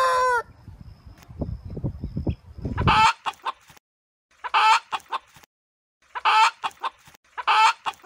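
Domestic chickens: a long held call ends about half a second in, then after a lull a hen gives short clucks, a burst about every one and a half seconds.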